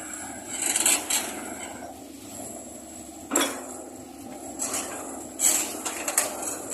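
Hitachi excavator being loaded: a steady engine drone under loud metallic clanks and rattles. The strongest clanks come about a second in, past three seconds, and twice near the end.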